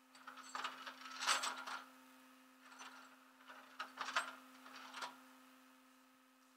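Tow chains and hooks clinking and rattling in several short bursts against the steel rollback deck, the loudest about a second in, over a steady hum.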